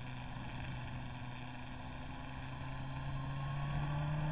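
Motorcycle engine running on the road, its note climbing slowly and getting louder from about halfway through as it gathers revs, over steady wind and road rush.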